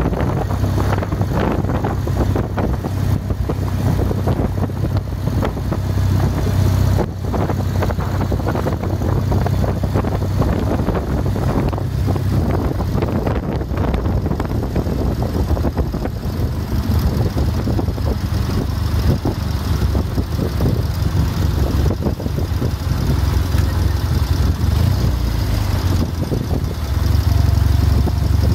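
Engine of a WWII German military motorcycle with sidecar running steadily at road speed, with wind on the microphone.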